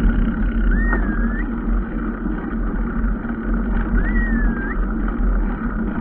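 A motor vehicle's engine running steadily with a low rumble. Two short whistles that rise and fall come about a second in and about four seconds in.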